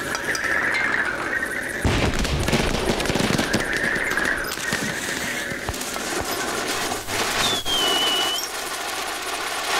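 Cartoon firework-rocket sound effects: a rapid string of crackling pops and fizzing, with squeaky tones and a short high whistle that falls then holds near the end.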